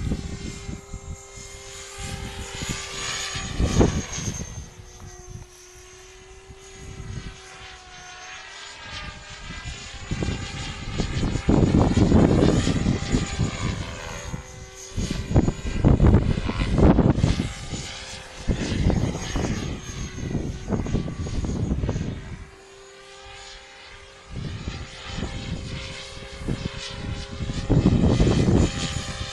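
Flasher 500 RC helicopter in flight at a distance: its rotor and motor sound is a steady tone that wavers slightly in pitch. Gusts of wind buffet the microphone in loud low rushes every few seconds.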